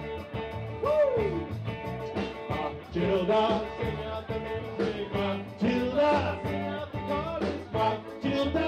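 A calypso band playing live: electric guitar, bass and drums under a wavering lead melody line that swoops down in pitch about a second in.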